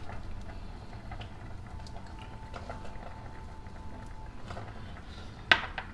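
Faint clicks and taps as chopped bird's eye chilies are tipped from a small glass bowl into a ceramic serving bowl, over a steady low hum. Near the end, one sharp knock.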